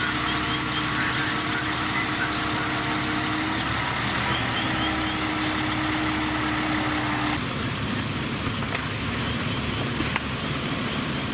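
Diesel engine of an aerial ladder fire truck running steadily, with a steady whine over it that cuts off suddenly about seven seconds in, leaving a duller engine rumble.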